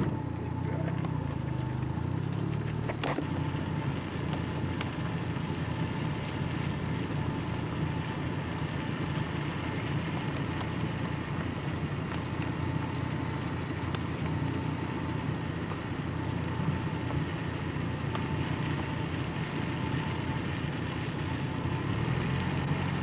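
Steady engine hum and road noise of a car, heard from inside the moving car, with a faint click about three seconds in.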